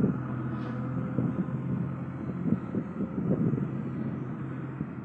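Footsteps on dry dirt over a steady low mechanical hum.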